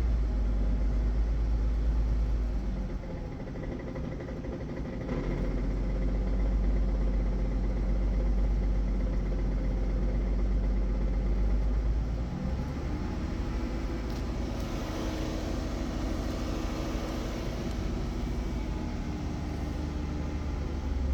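The 3.6-litre V6 of a 2018 Ram ProMaster 1500 van running at or near idle, with a strong low hum. The owner reports a noise at idle that goes away above 1000 rpm. About twelve seconds in, the low hum drops and the engine note steps up slightly in pitch.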